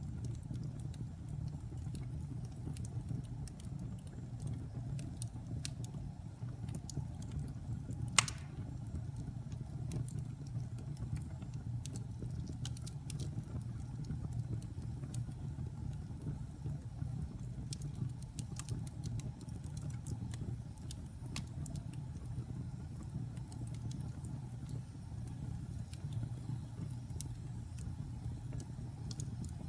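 Fire in a fireplace crackling: a steady low rumble of flames with scattered small pops and one loud sharp pop about eight seconds in.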